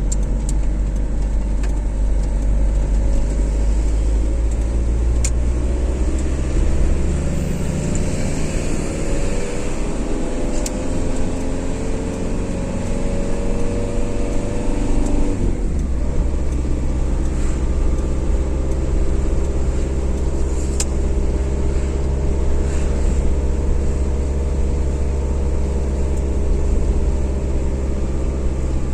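Car driving on a motorway: steady engine and tyre rumble. The engine note rises gradually, then falls sharply about halfway through and settles again.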